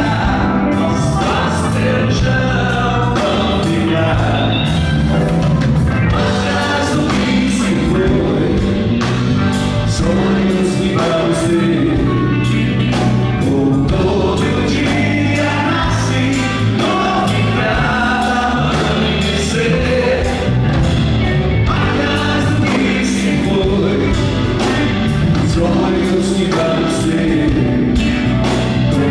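Live Jovem Guarda rock band playing a song on electric guitars, keyboard and drums with a steady beat, with sung vocals over it.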